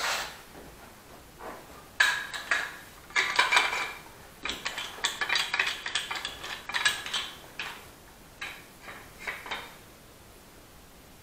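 Metal clamps and tools clattering and clinking in a string of quick, irregular knocks as a clamp is picked out, busiest from about two seconds in and dying away shortly before the end.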